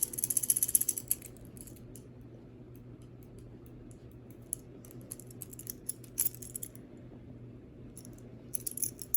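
Cheap balisong (butterfly knife) being flipped: a fast rattling run of metal clicks in the first second, then scattered clicks as the handles and latch knock against the blade, bunching again around six seconds and near the end.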